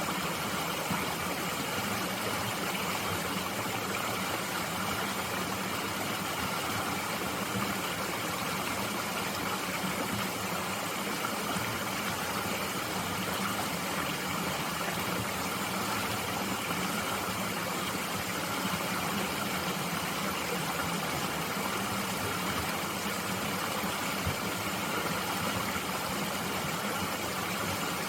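Mountain stream flowing, a steady even rush of water.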